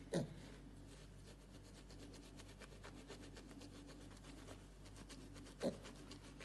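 Quick, repeated scratchy strokes of a small handheld grooming tool being rubbed over a piglet's bristly back. Two short, loud sounds that drop sharply in pitch cut in, one near the start and one about five and a half seconds in.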